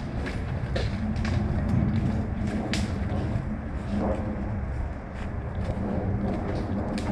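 Scattered airsoft gun shots: about half a dozen short, sharp snaps at irregular intervals, over a steady low rumble on the microphone.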